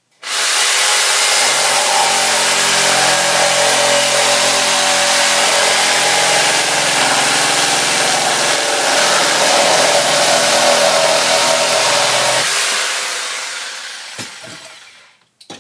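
Reciprocating saw (sawzall) cutting straight through the end of a peeled log at full speed. About twelve seconds in the cut finishes and the saw winds down to a stop.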